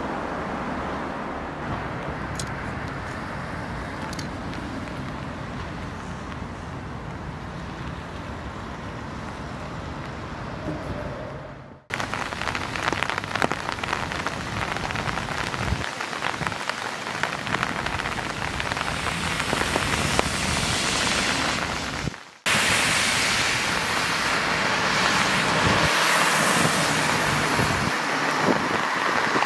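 Outdoor rain and traffic ambience in three takes, each ending in an abrupt cut about twelve seconds in and again about ten seconds later. The first take is a low steady rumble of traffic. The next two are steady rain hiss over passing traffic on wet roads, with the rain louder and brighter in the last take.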